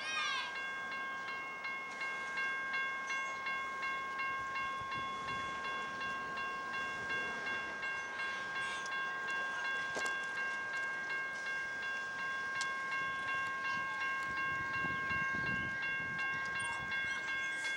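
Train of empty coal hopper cars rolling across a steel railway overpass: a steady high ringing whine over a clatter that pulses about twice a second.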